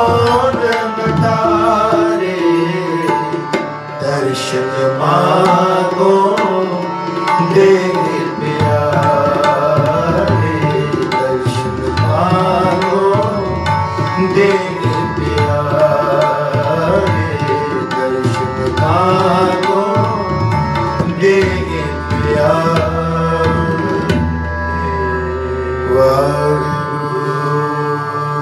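Sikh kirtan music: harmonium and tabla playing a shabad melody together, with the tabla keeping a steady rhythm under the harmonium's sustained notes.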